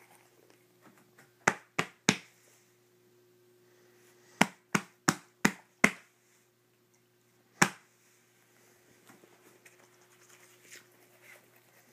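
Finger snaps to rouse a dog from bed: three quick snaps, then a run of five, then a single one. Faint rustling of bedding near the end as the dog starts to get up.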